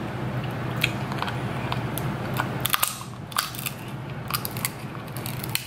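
King crab leg shell being cracked and bitten open by hand and teeth: a scatter of sharp snaps and crunches, over a steady low hum. The shell is hard to open.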